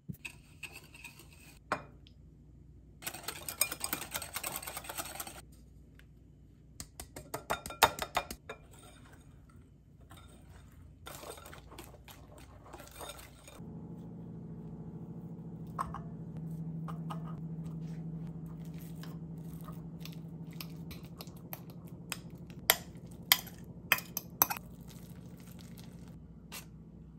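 Kitchen utensils clinking and scraping against a mixing bowl in scattered spells while banana-bread batter is made, with a few sharp taps of a metal whisk on the bowl near the end. A low steady hum comes in about halfway through.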